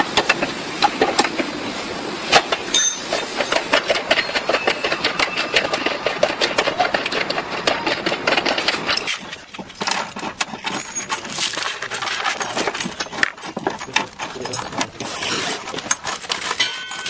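Ratchet wrench clicking rapidly as it tightens the bolts for a running-board side step's mounting brackets under the car's sill. The clicking briefly drops in level about nine seconds in.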